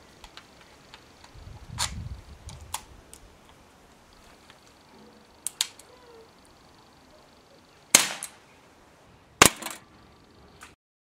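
A few sharp clicks as the Smith & Wesson 586 CO2 air revolver is loaded and readied, then two loud shots about a second and a half apart as it fires .177 pellets.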